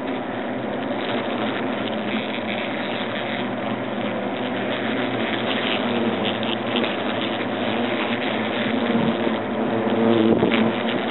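European hornets buzzing in their nest cavity, a continuous drone of many wingbeats that swells near the end.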